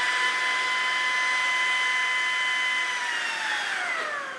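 Ryobi stick vacuum's motor running with a steady high whine, then winding down with falling pitch near the end as it is switched off. The brush roll in the head is not spinning, which the owner puts down to a bad belt.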